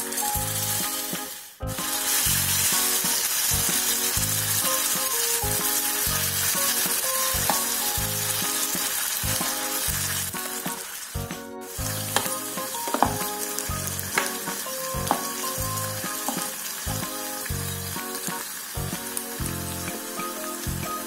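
Tempe orek with sliced chillies and shallots sizzling loudly in a small electric frying pan as tamarind water hits the hot oil, stirred with a wooden spatula that clicks and scrapes now and then. Background music with a steady beat plays underneath.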